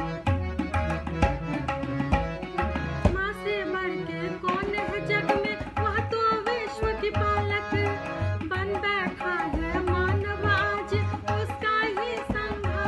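A woman singing a Hindi song over an instrumental backing with a steady drum beat; her voice comes in about three seconds in, with melodic ornaments.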